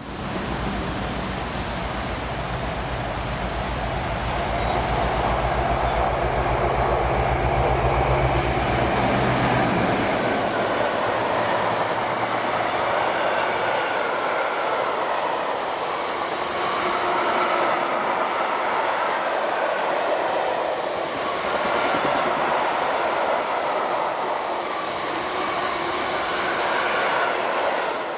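Diesel freight locomotive going past with its engine running for the first ten seconds or so. A long rake of tank wagons follows, rolling by with a steady rumble of wheels on the rails.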